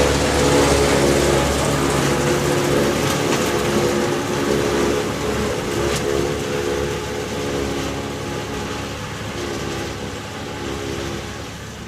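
Tractor and JF silage harvester running steadily, a droning hum with a steady pitch, slowly getting quieter.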